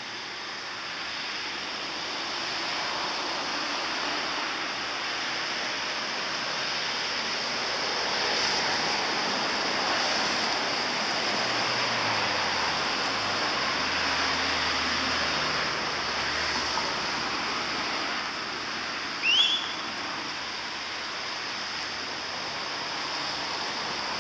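Steady hiss of rain falling over wet ground, with a short, high, rising squeak about three-quarters of the way through.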